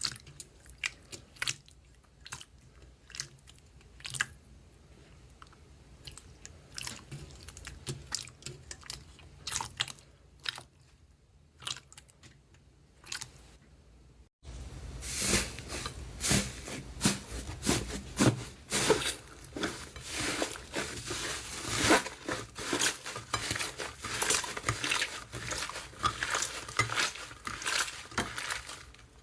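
Slime being squeezed and worked by hand, giving scattered sharp crackles and pops. A little past halfway it cuts to a louder, denser run of crackling and crunching.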